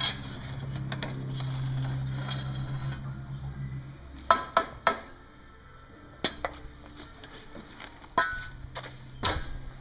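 Sharp metal clanks and clinks, several in quick succession about four seconds in and a few more near the end, as the steel lid of a melting furnace and a slotted steel strap are handled. Under them a low steady hum stops about four seconds in and comes back near the end.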